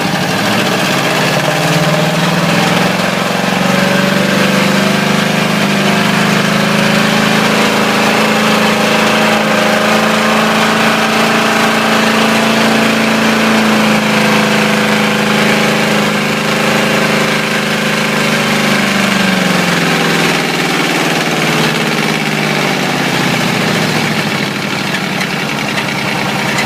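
Ford 351 Windsor V8 running with a spun bearing, revved up in the first couple of seconds and held at a steady raised speed, then easing back down toward idle over the last several seconds.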